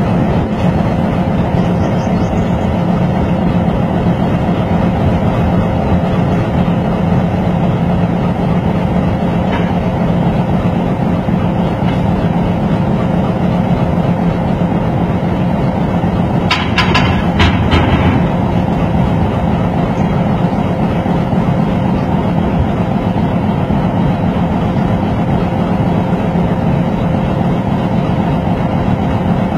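Diesel locomotive engine running steadily, a continuous low drone. A short cluster of sharp clicks comes a little past halfway.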